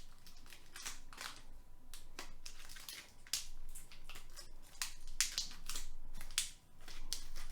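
A knife cutting and scraping at the wrapper of a trading-card pack, with irregular rustling and crinkling strokes; the pack is proving hard to open.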